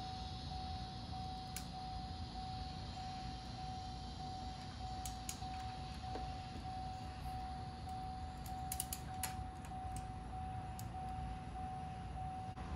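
Torque wrench on the banjo bolt of the turbo's oil feed line: a few scattered sharp metallic clicks, several close together a little past the middle, over a steady low rumble with a faint steady tone.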